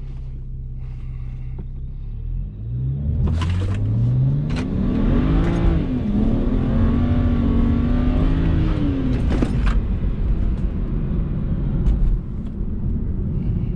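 BMW N54 3.0-litre twin-turbo inline-six, with bolt-on upgrades, revving hard. It runs steady at first, then about two and a half seconds in it climbs in pitch, dips briefly, holds high for about three seconds and falls back. A few sharp pops come on the way up and as it drops.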